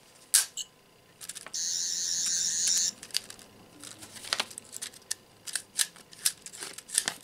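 Toy 11th Doctor sonic screwdriver: a click, then its electronic sound effect, a warbling high whine, for about a second and a half. A run of small plastic clicks follows as the toy's extended claws are handled and pushed closed.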